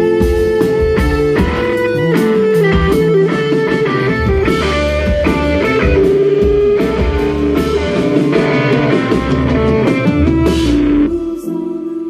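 Live rock band playing an instrumental passage: electric guitars, bass guitar and a drum kit at full volume. About a second before the end the drums and bass drop out, leaving held guitar or keyboard tones.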